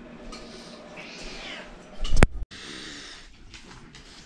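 Domestic cat meowing: one drawn-out, arching call about a second in. Just after two seconds comes a loud short knock, the loudest sound.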